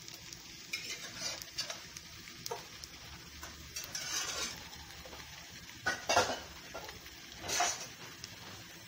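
Diced precooked potatoes frying in margarine, sizzling steadily, with a few short clattering and rustling handling sounds of kitchen pots and dishes, the loudest about six and seven and a half seconds in.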